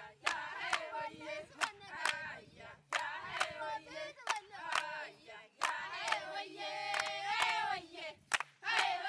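A group of women's voices singing a song together, with sharp hand claps keeping a steady beat about twice a second.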